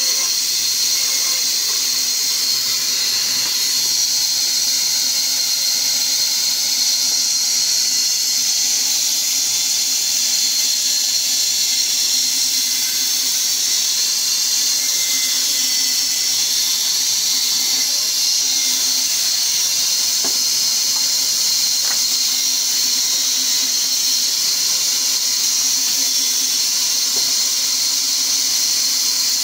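Large wood-cutting band saw running, its blade sawing lengthwise through a log fed by hand, a steady high-pitched hiss and whine that holds the same throughout.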